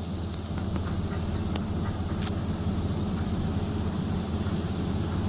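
Steady low machinery hum, with a few faint light clicks in the first couple of seconds.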